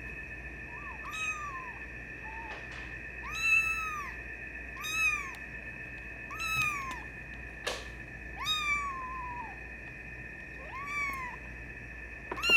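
A 24-day-old Maine Coon kitten mewing repeatedly: short, high, thin cries that rise and fall, about eight of them, roughly every one to two seconds.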